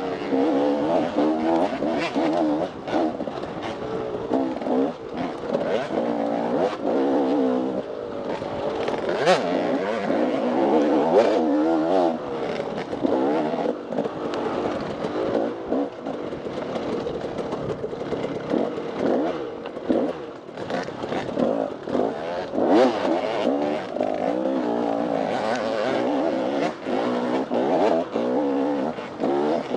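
Off-road dirt bike engine racing through a woods trail, revving up and down constantly as the throttle is worked, with scattered knocks and clatter from the bike over rough ground.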